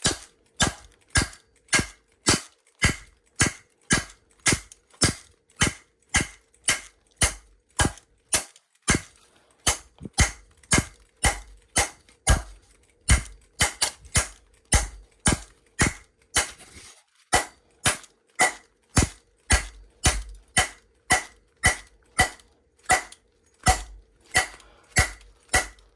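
A piece of wood striking a locked Disecu combination padlock over and over in an even rhythm, about one and a half hits a second: a strike test trying to beat the shackle open.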